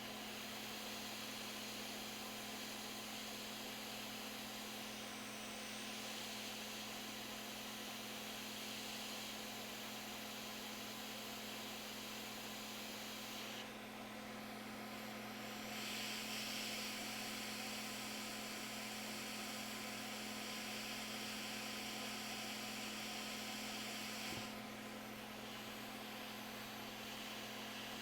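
Steady hum and airflow hiss from workbench equipment. The hiss drops away briefly a couple of times, about halfway through and again near the end, then returns.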